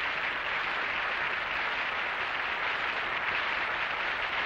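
Studio audience applause: a steady, even clatter of many hands clapping, with no music or speech over it.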